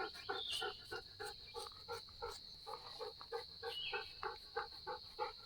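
Dog lapping water in a steady rhythm of about three laps a second, over a steady high insect drone.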